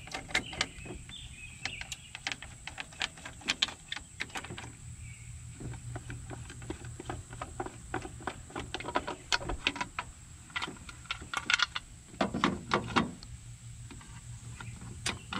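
Irregular small clicks and light knocks of a hand turning the knurled knobs on a Rolls-Royce 20/25 fuse panel cover and lifting the cover off the fuse box.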